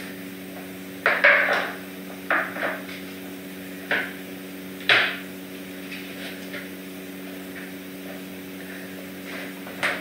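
A handful of sharp knocks and clatters of hard objects being handled, bunched in the first five seconds, over a steady low hum.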